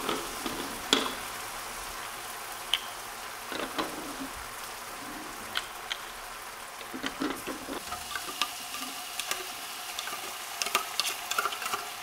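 Steady sizzling like food frying on a grill, with scattered light clicks of a plastic toy spatula and plastic play food tapping on a plastic plate.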